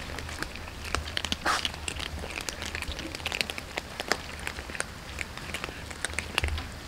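A group of cats eating dry kibble off concrete: many quick, irregular crunches and clicks of chewing and of pellets being nudged about, over a low steady hum.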